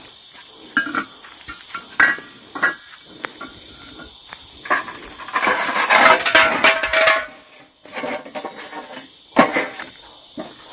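Night insects, crickets among them, chirring steadily, with irregular knocks and clatter of camp gear being handled. About six to seven seconds in there is a louder metallic clatter with a brief ringing tone, like the iron rod or a pot being set over the fire.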